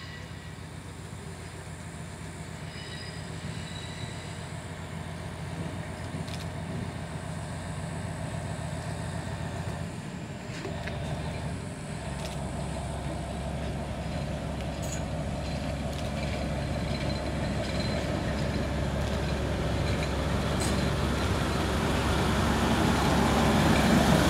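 401Da diesel locomotive running as it approaches hauling a passenger coach, its engine hum growing steadily louder as it draws near and passes close. The engine note shifts about halfway through, and a few faint clicks come from the wheels on the track.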